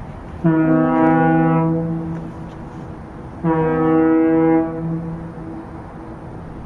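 Ship's horn sounding two long blasts about three seconds apart, each fading out after about a second and a half.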